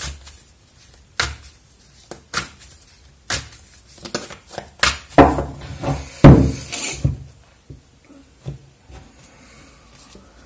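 Oracle card deck shuffled and handled: a string of sharp card slaps and knocks about a second apart, loudest in a cluster around the middle, then only faint rustling near the end.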